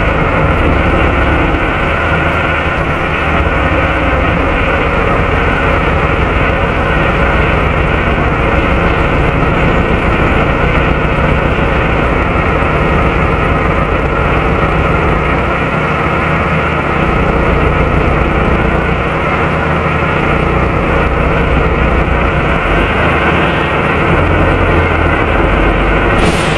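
Volvo B7RLE bus's six-cylinder diesel engine running with its engine cooling fan going, heard inside the rear of the saloon. It is a loud, steady rushing whir over a low engine rumble, with a constant whine held above it.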